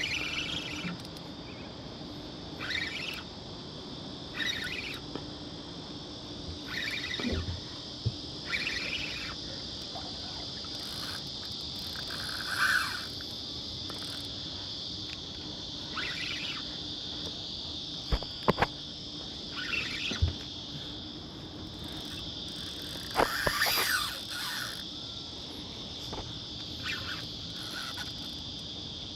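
Steady high-pitched insect drone, with a bird calling over and over every couple of seconds and a few sharp knocks or clicks around the middle.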